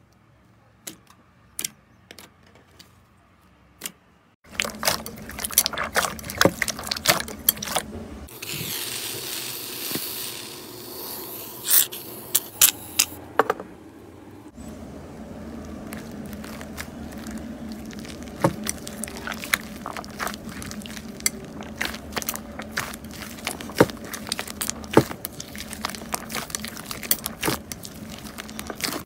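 Slime being squished and kneaded by hand, giving sticky clicks and pops. A few scattered clicks in the first four seconds, dense clicking from about four and a half seconds on, and a stretch of hiss from about eight to eleven seconds in.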